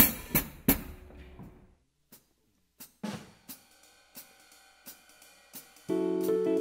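Drum kit: three loud cymbal-and-drum hits in quick succession, then after a short pause light hi-hat ticks keeping time at about three a second. Near the end the band comes in with sustained chords.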